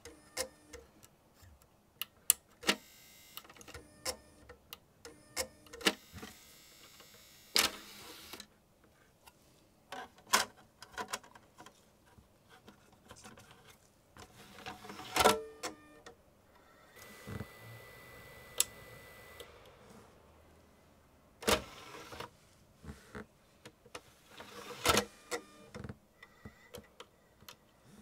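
Slim tray-loading optical drive from an iMac G4 being handled: a string of sharp clicks and taps from a plastic pick and the drive's tray mechanism, with the drive's motor whirring for a couple of seconds a little past the middle as the tray moves.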